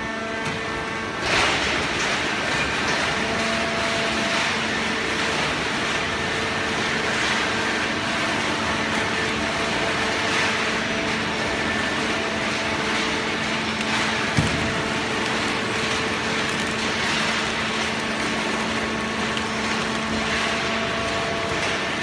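Automatic horizontal hydraulic cardboard baler running: a steady mechanical drone with a humming hydraulic pump and motor, a clank just over a second in and a sharp knock about fourteen seconds in.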